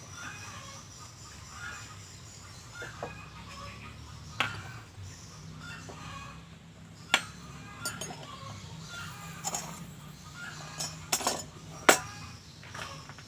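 Chickens clucking in the background, with a faint steady hum. A handful of sharp clicks and knocks come from tools being handled, the loudest near the end.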